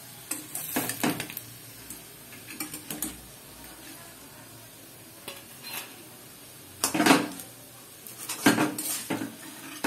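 Metal spatula scraping and knocking against a metal kadai and a steel plate while fried pumpkin-flower fritters are lifted out, in scattered clinks with louder clatters about a second in, around seven seconds and again near the end.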